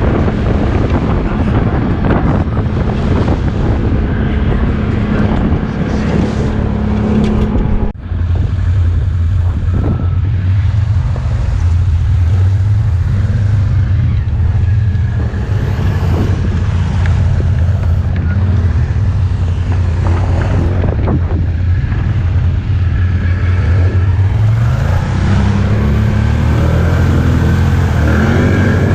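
ATV engine running while riding, with wind on the microphone. After a sudden cut about eight seconds in, a steady low engine note holds, then climbs in pitch near the end as the engine revs up.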